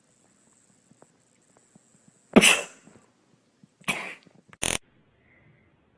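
Three short, sharp sneeze-like bursts, the loudest about two and a half seconds in, then one near four seconds and a brief one just after.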